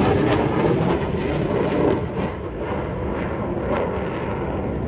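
F-15 fighter jet passing low: loud jet engine noise with a rough crackle, easing off after about two seconds as it flies away.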